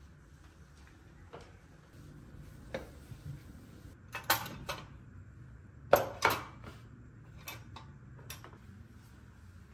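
Household objects being handled: a scattering of short clicks, knocks and clatters, the loudest two close together about six seconds in.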